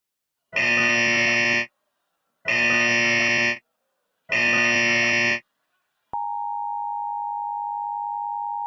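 Emergency Alert System broadcast interruption: three bursts of SAME digital header data, each about a second long with short silences between, then about six seconds in the steady two-tone EAS attention signal starts and holds. It opens a National Weather Service tornado warning.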